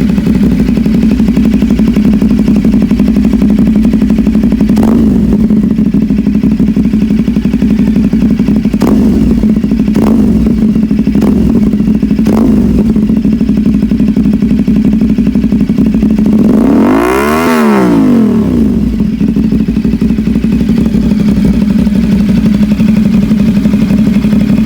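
CF Moto 450SR parallel-twin engine idling through an SC Project slip-on exhaust. It gives several short throttle blips in the first half, then one longer rev about two-thirds of the way in that climbs and falls back to idle.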